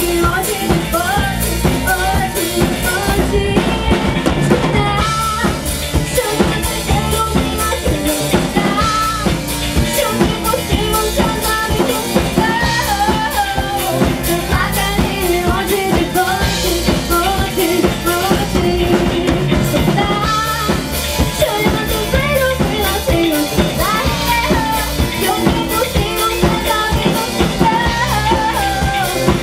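Live band playing a pop-rock song: a drum kit keeping a steady beat under a wavering melodic lead line, with no break in the music.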